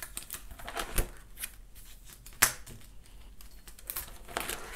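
Plastic photocard binder sleeves rustling as binder pages are handled and turned, with a few sharp clicks, the loudest about two and a half seconds in.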